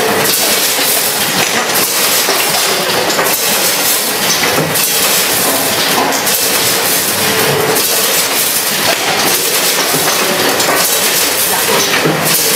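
Vertical form-fill-seal oat packaging machine with a multihead weigher running: a steady mechanical clatter with a sharper clack about every second and a half, one per bagging cycle.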